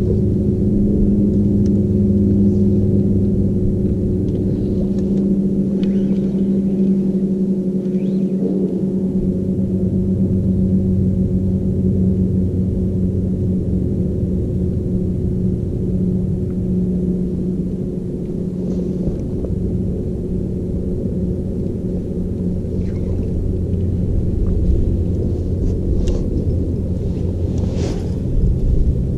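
Bass boat's electric trolling motor humming steadily while the boat is worked along the bank. The low part of the hum fades for a couple of seconds about seven seconds in, then returns.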